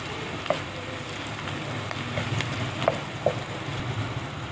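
Onions and spices sizzling in hot oil in a nonstick wok, stirred with a wooden spatula, with a few short clicks.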